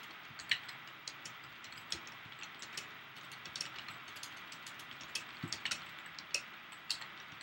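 Typing on a computer keyboard: a run of irregular keystroke clicks as a short sentence is typed.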